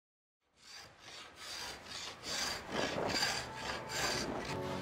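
Bladed hand tool shaving a wooden canoe strip: a run of short rasping strokes, about two a second, that grow louder, each stroke peeling off a curl of wood.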